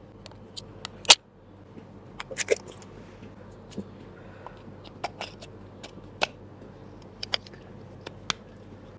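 Scattered sharp plastic clicks and taps as a GoPro Hero 11 action camera and its battery are handled, the loudest about a second in and a quick cluster a moment later.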